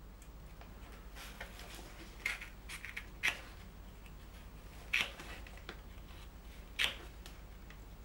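Short blade of a small folding knife sawing slowly through seat-belt webbing: faint scratching with about six short, crisp snips at uneven intervals, the loudest near the middle and near the end.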